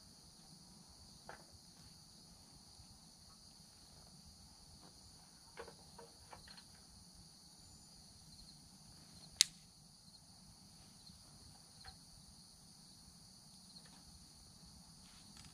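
Crickets chirping in a steady high-pitched chorus, with a few scattered pops and cracks from a newly lit fire; the sharpest crack comes about nine seconds in.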